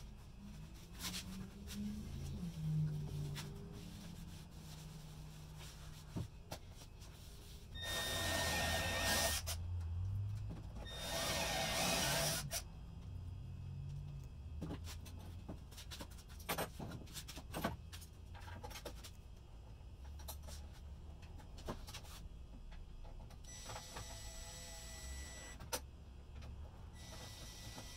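A hand rubbing across a wooden furniture top, then a cordless drill countersinking holes in a wooden drawer in two short bursts, with knocks and clicks of handling in between. Near the end the drill runs twice more with a steady whine.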